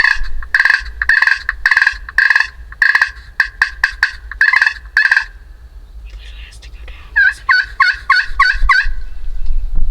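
Turkey yelps: a series of about a dozen short two-toned notes, roughly two a second, then after a pause of about two seconds a faster run of notes near the end.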